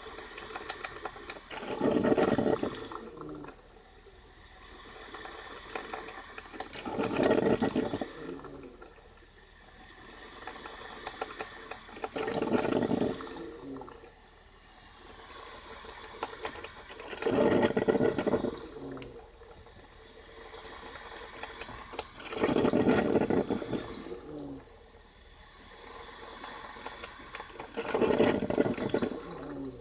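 Braun type 4085 drip coffee maker brewing: a gurgling, hissing surge of water about every five seconds, six times, with a quieter hiss in between.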